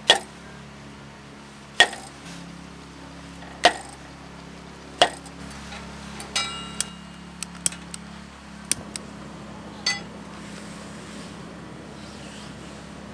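Metal camp gear or cookware being handled: sharp knocks every second or two, then a quick run of ringing metallic clinks, over a steady low hum.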